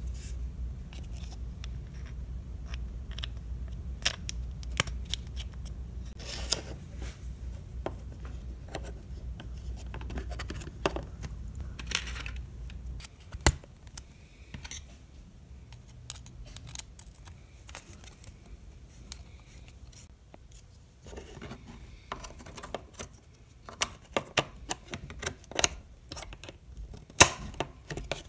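Hard plastic battery-tray parts of an RC truck being handled and snapped together: scattered clicks, taps and scrapes, busiest near the end. A low steady hum runs underneath and stops about halfway through.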